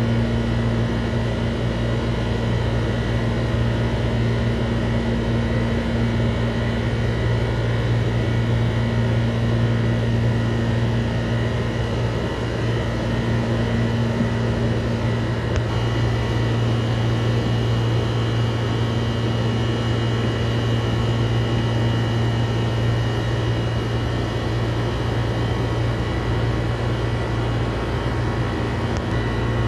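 Steady low mechanical hum, unchanging, with faint steady higher tones above it.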